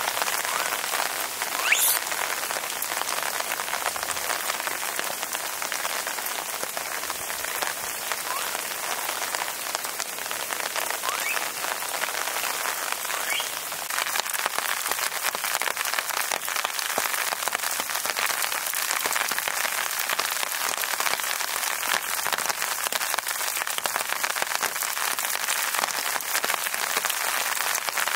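Steady rain falling, a dense patter of many small drops, with one brief sharper sound about two seconds in.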